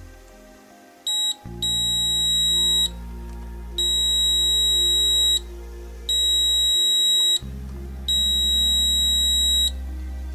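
Handheld digital multimeter (Agilent U1251A) sounding its continuity/short beeper in diode test. A brief chirp about a second in is followed by four steady, high-pitched beeps, each lasting a second or more, as the probes are tried across zener diodes being checked for shorts.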